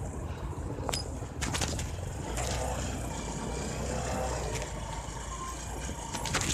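Bajaj Discover 150F motorcycle running as it rides off, with a steady low rumble of engine and wind on the phone's microphone, and a few short clicks and rattles.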